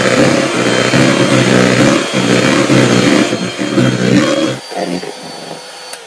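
Electric hand mixer whipping cream mixed with chocolate sauce in a plastic bowl: a steady motor hum and whirr of the beaters. It turns quieter about four and a half seconds in and begins to wind down at the very end.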